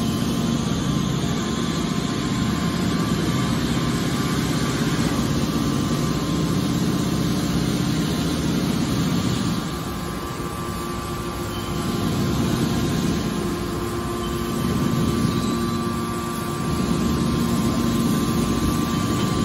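Hydraulic scrap metal baler running: its hydraulic power pack drones steadily under load as the rams compress scrap and push out a finished bale. The sound eases off slightly twice, about ten and fifteen seconds in.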